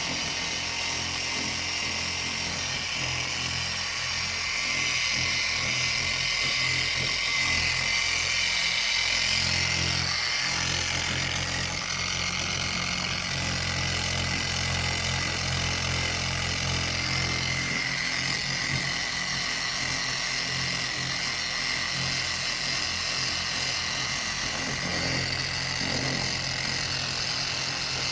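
Small power sander running steadily at low speed, its disc sanding a plastic headlight lens.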